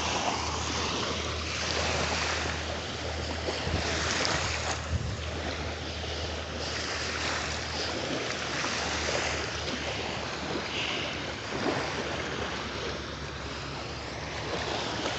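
Ocean surf washing onto a beach, a steady hiss of breaking waves that swells and eases every few seconds, with a low rumble of wind on the microphone underneath.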